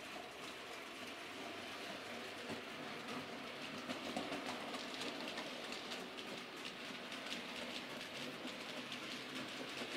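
OO gauge model train of Bachmann china clay wagons behind a model steam locomotive running along the track, its wheels clicking over the rail joints over a steady hiss, loudest about four seconds in.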